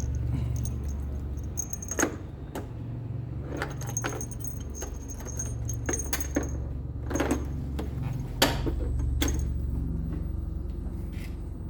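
Keys jangling in scattered light clinks and jingles over a steady low hum.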